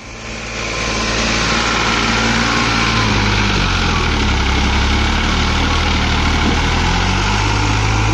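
Diesel tractor engine running loud and close, its speed shifting only slightly; it builds up over the first second.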